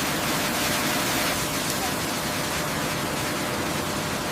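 A steady, even hiss of rushing noise, with a faint steady hum under it.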